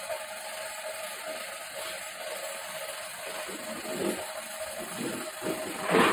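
A large, thin laminate sheet wobbling and rattling as it is lifted and carried. Near the end there is a louder flap as it is bent down onto the glued plywood panel, over a faint steady hum.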